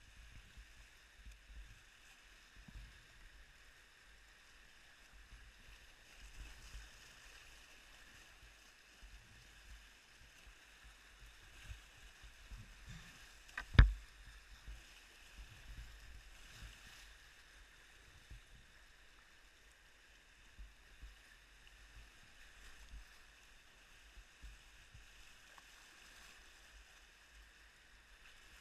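Whitewater rushing and splashing around a kayak running river rapids, with low uneven rumbles and one sharp knock about halfway through.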